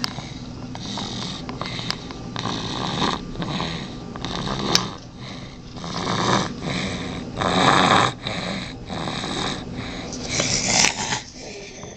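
A sleeping baby snoring through a stuffed-up nose, with one noisy breath after another and a few louder snores; the heavy snoring comes from congestion with a cold.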